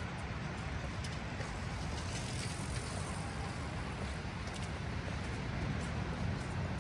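Steady outdoor din of road traffic, with faint scattered ticks.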